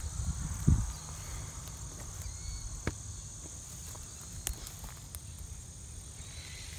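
Steady high-pitched chorus of insects, with wind rumbling low on the microphone. There is a low thump just under a second in, and a few faint clicks later.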